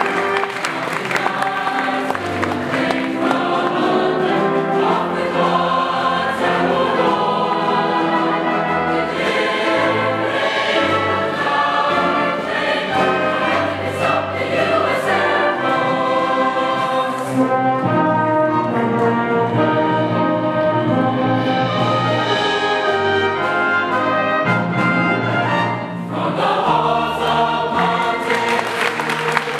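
Large mixed choir of young male and female voices singing in harmony, holding long sustained chords.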